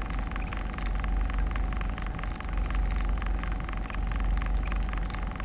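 Steady low rumble of a car heard from inside its cabin, with a faint steady hum above it.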